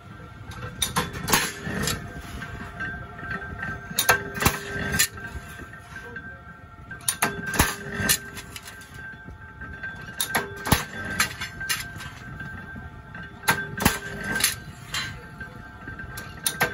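Mechanical punch press fitted with an angle-shearing die, chopping steel angle bar: sharp metallic clangs in clusters every few seconds, with the cut steel ringing after each strike.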